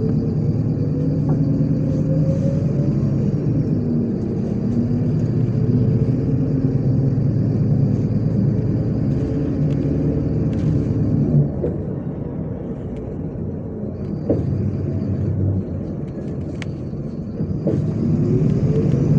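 MAZ-103 city bus engine pulling away, its pitch climbing and then falling back. About halfway through it goes quieter for several seconds, with a few brief knocks, then climbs again near the end.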